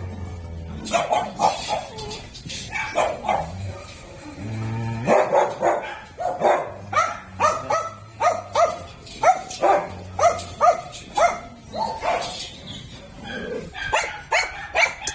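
Dogs barking repeatedly, a run of short, sharp barks at about two a second through the middle.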